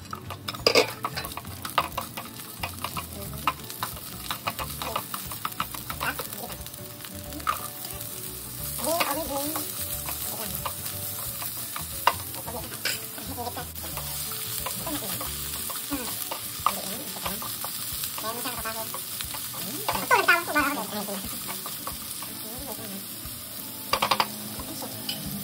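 Sliced red onion and chayote strips frying in oil in a non-stick pan, sizzling steadily while a spatula stirs them, knocking and scraping against the pan.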